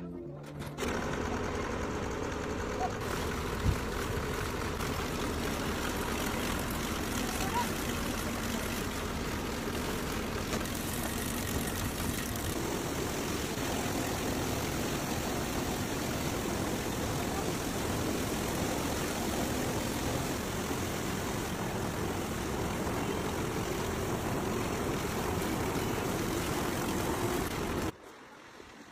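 Engine-driven carrot-washing drum machine running, with water spraying inside it: a steady mechanical drone under a rush of water, with one sharp knock about four seconds in.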